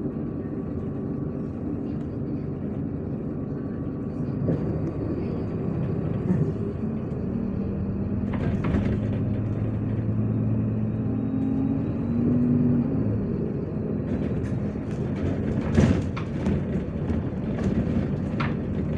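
MAZ 103 city bus under way: steady engine hum and road noise, with the engine note rising briefly past the middle. Rattles and a few knocks are heard, the sharpest a little after three-quarters of the way through.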